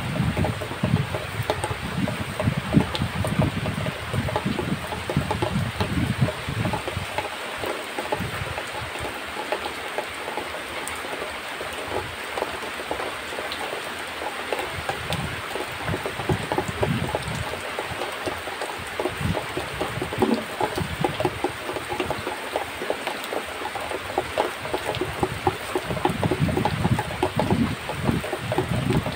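Cow being milked by hand: streams of milk squirting into a plastic bucket, a steady hissing patter.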